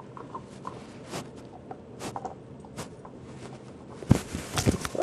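Close rustling with scattered soft clicks, then a burst of louder bumps and crackling about four seconds in. This is fur and fabric rubbing right against the microphone as a cat moves up close to it.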